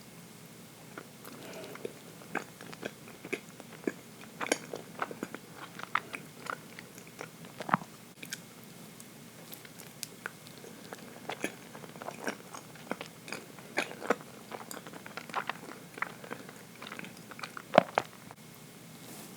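A person chewing rich, dense chocolate cake close to the microphone: irregular wet mouth clicks and smacks, several a second at times, one sharper click near the end.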